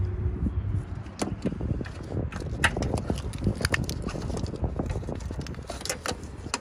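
Irregular light clicks, taps and knocks of tools and wiring being handled, with a low steady hum that fades out about a second in.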